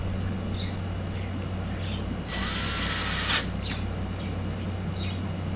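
Power drill with a long bit driving a screw into the pressure washer's plastic housing. It runs for about a second, starting a little past two seconds in, with a rising whine, then stops. A few light clicks come before and after.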